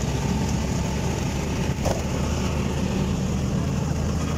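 Steady engine hum and road noise from aboard a moving vehicle, with a single short knock about two seconds in.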